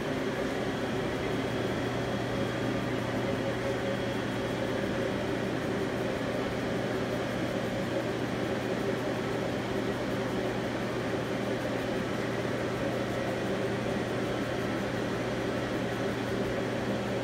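2006 Okuma ES-L811 CNC lathe running, a steady mechanical hum with a constant low tone.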